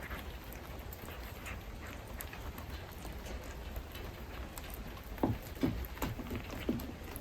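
A cat eating, with a run of short, soft chewing and smacking sounds starting about five seconds in, over a steady low hum.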